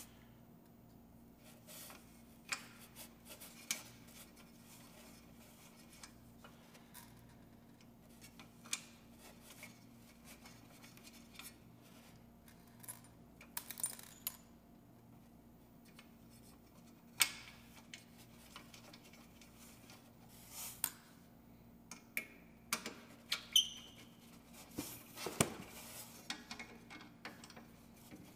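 Scattered small clicks and clinks of metal parts and screws being handled while ceiling fan blades are fastened into the fan's motor housing, more frequent near the end, over a faint steady hum.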